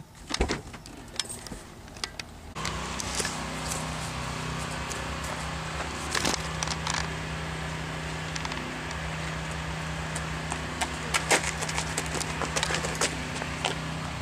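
A few small clicks and taps, then an abrupt change about two and a half seconds in to a steady low mechanical hum, with scattered clicks and taps over it.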